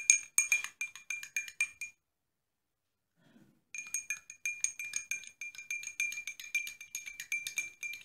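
A spoon stirring turmeric and honey into lukewarm water in a drinking glass, clinking against the glass several times a second with a bright ring. About two seconds in the clinking stops for nearly two seconds, then starts again.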